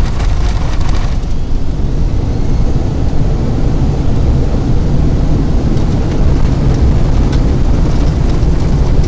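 Cockpit noise of a Boeing 757 on its landing roll: a loud, steady low rumble from the wheels and engines. A hiss above it eases off about a second in.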